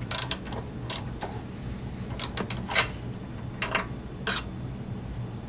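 Ratchet socket wrench clicking in a few short, irregular bursts as it loosens the spark plug in a Honda HS742TA snow blower engine.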